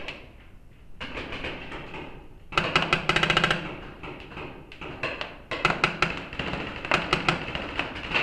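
Paintball markers firing. A fast burst of shots lasts about a second, a little over two seconds in, and is followed by scattered shots and short volleys.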